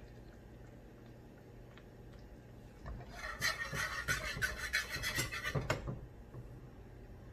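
Wire whisk stirring butter sauce in a frying pan: rapid scraping strokes starting about three seconds in and stopping about three seconds later.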